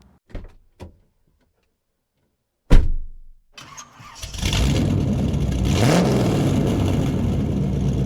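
A sharp loud thump about three seconds in, then an engine is started and settles into a steady run, with a brief rise in pitch about six seconds in.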